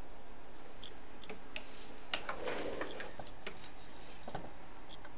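Scattered light clicks and small taps of a smartphone being handled and fitted into a bench phone holder, with a quick cluster of them and a brief rustle a little past two seconds in.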